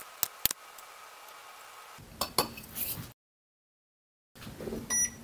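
Small glass cups clinking lightly against each other and the counter as they are handled while ground coffee is portioned out. The handling noise stops dead for about a second midway, and a brief high tone sounds near the end.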